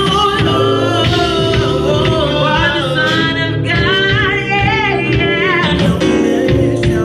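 Live band music with a singer, the voice sliding and bending in pitch over a band with steady low bass notes.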